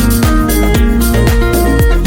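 Electronic background music with a steady beat, about two kick-drum thumps a second, under held synth notes.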